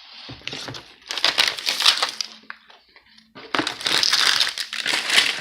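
A plastic candy bag crinkling as it is handled and opened, in two stretches of rustling with a short lull between.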